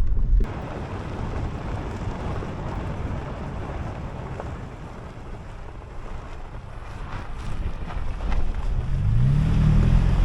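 Toyota Tacoma pickup driving on a dirt road: a steady rumble of tyres and engine with wind buffeting the microphone. The level drops abruptly about half a second in, and near the end the engine rises in pitch as it speeds up.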